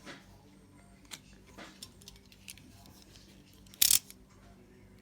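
Trading cards being handled: scattered small clicks and rustles, with one short, loud hissing burst of noise about four seconds in.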